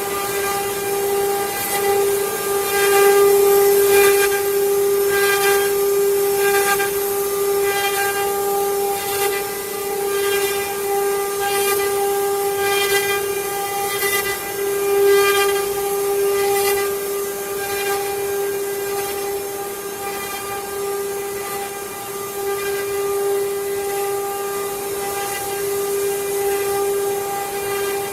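CNC wood-carving router running: the spindle gives a steady high whine while the bit cuts wood, with cutting noise swelling in short bursts again and again, most often in the first half.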